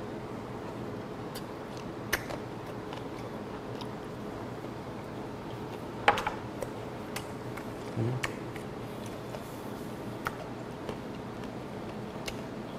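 Chewing of raw gizzard shad sashimi, with scattered wet mouth clicks and a sharper click about six seconds in, over a steady low hum.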